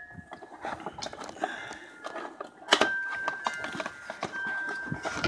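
Gloved hands handling and opening a cardboard parts box, with scattered cardboard rustles, taps and clicks and one sharper knock about halfway through. A faint steady high tone sounds in the background through the second half.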